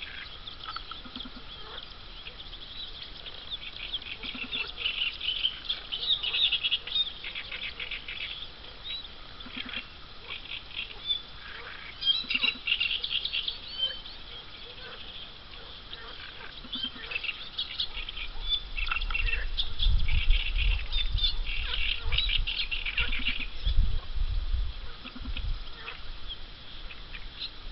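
Mallard ducklings peeping in quick clusters of high-pitched calls, with short low calls every few seconds. A low rumble, the loudest thing, comes in from about 18 to 25 seconds in.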